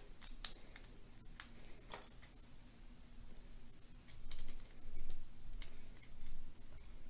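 Plastic Lego bricks clicking and knocking as they are handled by hand and snapped onto a build: a run of sharp, irregular clicks, busiest about four to six and a half seconds in.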